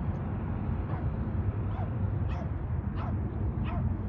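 A series of about five short, high animal calls, each well under a second apart, over a steady low rumble.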